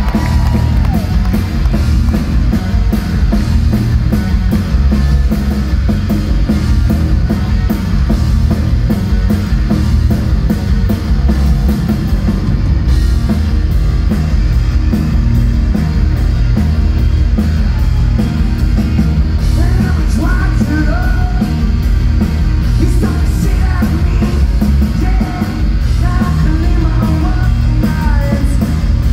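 Three-piece rock band playing live at full volume: electric guitar, electric bass and a drum kit driving hard with dense, regular drum hits. Mostly instrumental at first, with sung and yelled vocals coming in over the last third.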